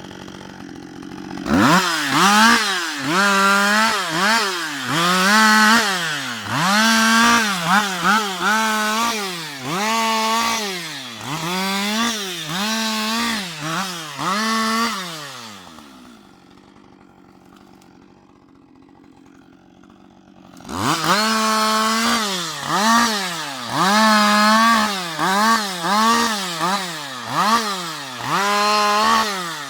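Husqvarna 560 XP two-stroke chainsaw being revved up and down in short bursts about once a second, as in a run of quick cuts through fallen wood. About halfway it drops back to a quiet idle for a few seconds, then resumes the same rapid revving.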